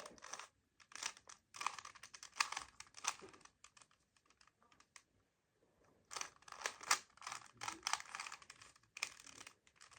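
Plastic Rubik's-brand 3x3 cube being turned quickly in a timed solve: rapid clacking of the layers in flurries, with a pause of about two seconds in the middle.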